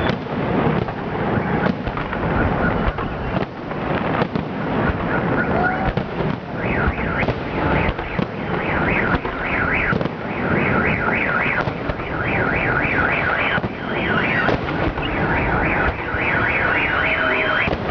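Fireworks salute going off with a steady low rumble and scattered bangs; from about six seconds in a car alarm wails in a fast, evenly repeating warble over it.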